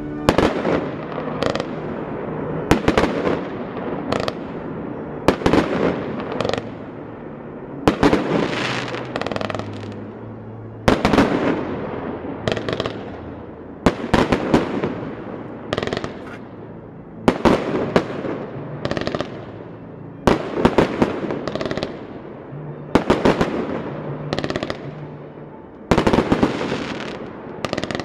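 Fireworks display: aerial shells bursting one after another, a sharp bang every second or two, each trailing off before the next.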